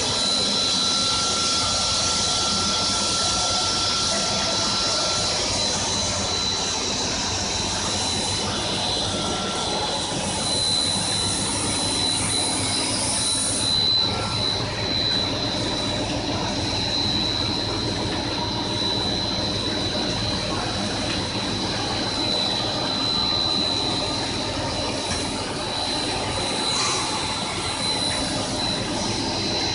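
Steady machinery noise of a running PVC profile extrusion line, with a constant high-pitched whine and a second, lower whine that drops out after the first few seconds.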